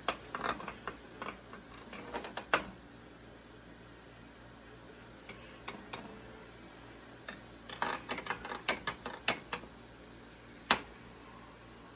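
Small utensil clinking and tapping against glass canning jars and the metal canner. A few clinks come at first, then a quick run of taps past the middle, then one sharp clink near the end, over a steady low hum.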